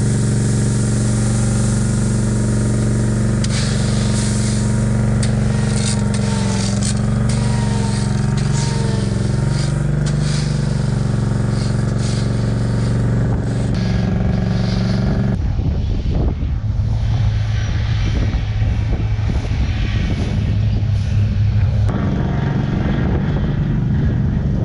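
Engine running steadily, with scrapes and knocks over it during the first half; the engine note shifts about 15 seconds in and again near the end.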